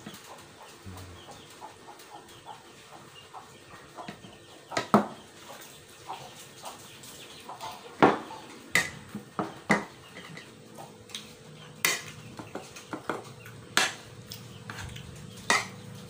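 Fork and spoon clinking and scraping against plastic plates while eating noodles and rice: irregular sharp clicks, a few of them louder knocks.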